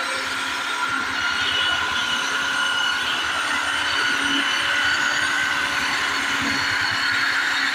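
Handheld electric belt sander running steadily with a whine, its sandpaper belt grinding across the face of a wooden board to smooth and clean it.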